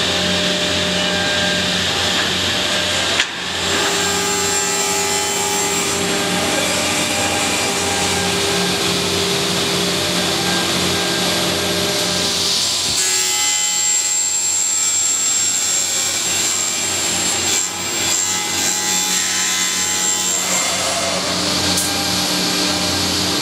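Sliding table panel saw running with a steady motor hum while its blade cuts through wood board. There is a sharp click about three seconds in, and the sound changes abruptly twice later on.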